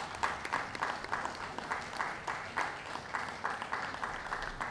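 Audience clapping in a steady rhythm, about four claps a second.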